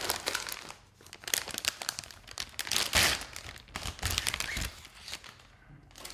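Clear anti-static plastic bag crinkling and rustling in irregular bursts as a motherboard is slid out of it, loudest about halfway through and dying away near the end.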